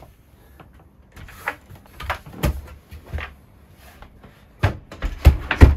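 Wooden table top being pulled out from under a sofa and handled, with light scraping and knocks, then several sharp wooden clunks near the end as it is set in place.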